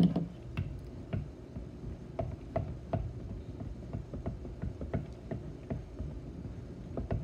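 Silicone spatula stirring white glue in a glass bowl, clicking against the glass irregularly about twice a second.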